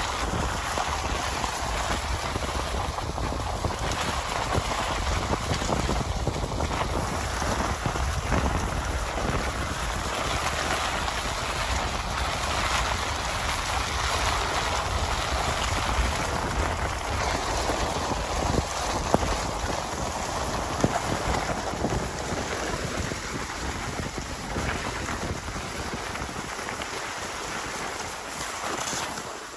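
Cross-country skis hissing steadily over a groomed snow track, with wind buffeting the microphone and a couple of sharp clicks about two-thirds of the way through.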